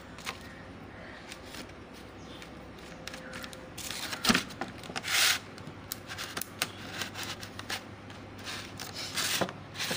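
Tissue paper rustling and a clear plastic food container being handled and closed, in short bursts of crinkling and clatter starting about four seconds in, with a sharp clack among them; a faint steady hum underneath before that.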